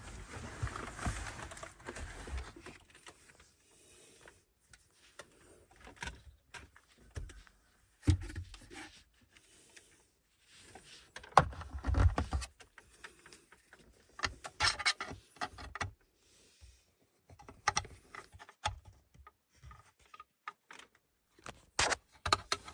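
Hands pushing and prying at plastic mirror-cover trim against the windshield: irregular clicks, knocks and rustles of plastic parts and clips that are slow to release.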